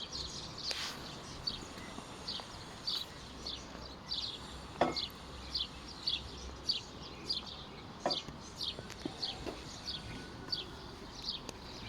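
A bird chirping over and over: short, high chirps that slide down in pitch, about two a second. A few sharp clicks sound about halfway through.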